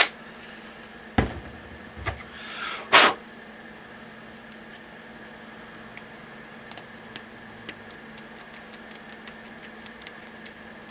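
A few knocks and a short scrape ending in a clack within the first three seconds, then faint light metallic clicks as the aluminum nozzle block and a hot-end tube are handled and test-fitted.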